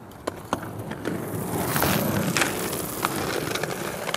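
Inline skate wheels rolling over asphalt: a rumble that swells about a second in and holds, with a few sharp clicks.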